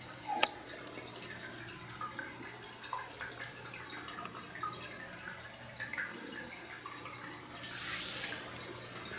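Cat eating dry kibble from a dish, small irregular crunching ticks over the steady trickle of a pet water fountain beside it. A sharp click comes just after the start, and a brief louder hiss about eight seconds in.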